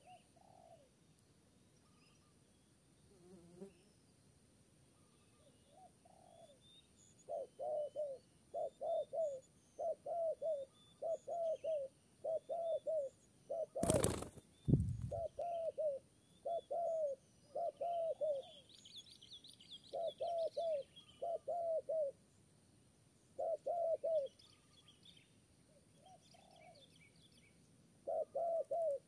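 Spotted doves cooing in short, evenly repeated phrases. About halfway through there is a loud burst of wing flapping lasting about a second, and small birds chirp faintly in the background.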